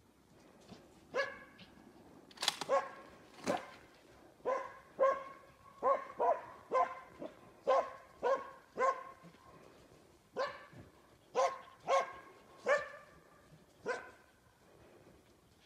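Moose-hunting dog barking repeatedly in a long run, one to two barks a second with a short pause near the middle: bay barking at a moose.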